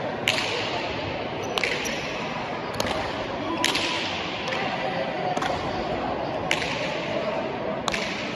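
Pelota ball being struck by hand and smacking off the fronton's walls during a rally, a sharp crack about once a second with a short echo after each.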